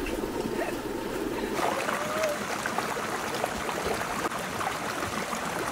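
A small rocky stream flowing steadily, its water splashing and rushing through a narrow gap between boulders into a pool.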